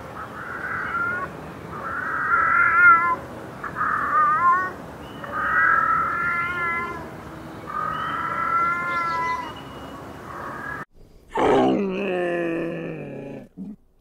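A domestic tabby cat meows repeatedly, about six drawn-out calls at a steady pace. After a short break near the end comes a deeper, louder call that falls in pitch, from a camel.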